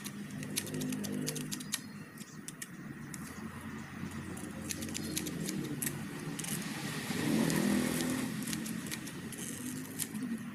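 Hand grass shears snipping grass: a run of quick, sharp metallic clicks. Underneath, a motor vehicle's engine hums, growing louder and passing about two-thirds of the way through.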